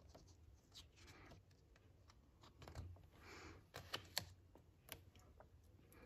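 A page of a hardcover picture book being turned by hand: a faint paper swish about halfway through, with a few light ticks and rustles of fingers handling the book.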